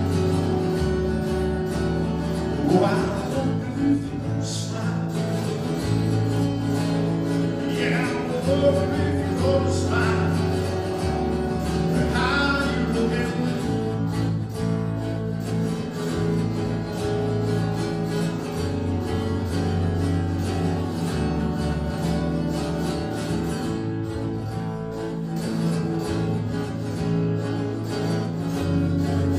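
Live acoustic guitar and a two-handed tapped stick-style instrument playing together, the guitar strummed and picked over low bass notes that change every couple of seconds. A few gliding higher notes rise over the music in the first half.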